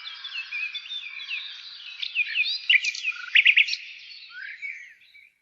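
Pied bushchat (decu) song: a dense run of quick chirps and whistles, with a few loud sharp notes a little past halfway. It fades out near the end.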